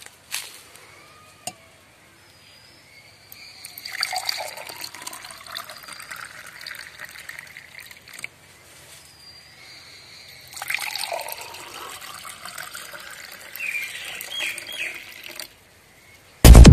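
Green mango juice poured from a steel bowl into two drinking glasses in two pours of a few seconds each, with liquid splashing into the glass. Loud electronic music cuts in at the very end.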